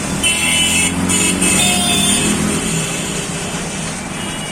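UP Roadways bus engine running with a steady low drone. For about the first two seconds a high-pitched whine with hiss sounds over it, then fades; this is the unusual noise the bus is being shown for.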